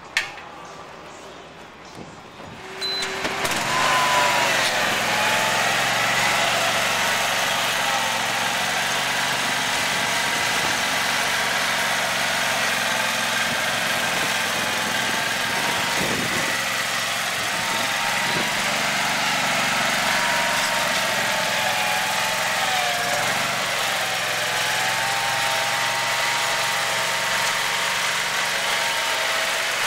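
Propane-powered Dixie Chopper zero-turn mower's engine starting about three seconds in, then running steadily, its pitch rising and falling a little.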